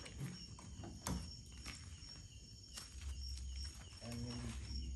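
Scattered footsteps and light knocks on paving, over a steady high chirping of crickets, with a brief faint voice near the end.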